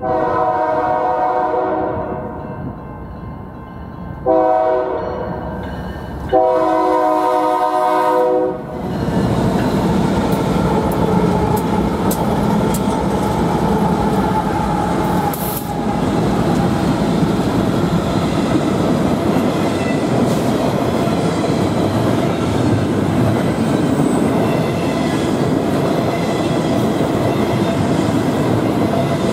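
Locomotive horn sounding three chord blasts, long, short, long, the close of a grade-crossing warning. The train then passes with steady wheel-on-rail noise.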